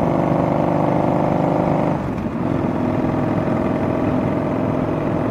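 Yamaha Bolt's air-cooled V-twin running steadily at cruising speed through a homemade slip-on exhaust with one bolt-in baffle fitted. About two seconds in, the sound briefly dips and settles to a slightly different pitch.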